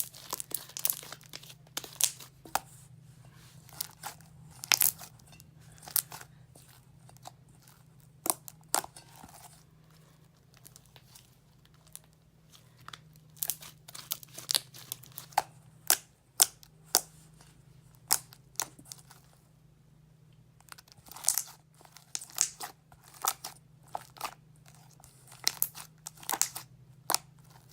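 Hands squishing and stretching homemade slime, giving a run of irregular sticky clicks and pops, with a short lull about twenty seconds in.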